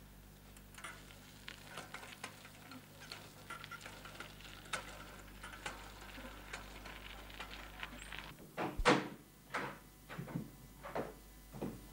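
Scattered light clicks and knocks, then a run of heavier knocks, a little under two a second, over the last few seconds; the first knock of the run is the loudest.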